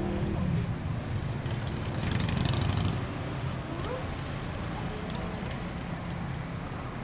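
Street traffic: cars and motorbikes running and passing, a steady rumble with a louder pass about two to three seconds in.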